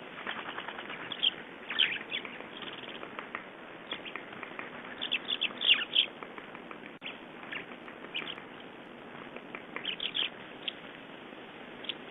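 A flock of small songbirds chirping: many short, high call notes, scattered and coming in loose bursts, over a steady background hiss.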